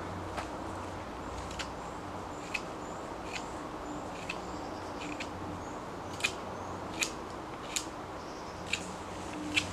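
Short, sharp cutting clicks from a knife working wood by hand, irregular at about one a second and louder in the second half.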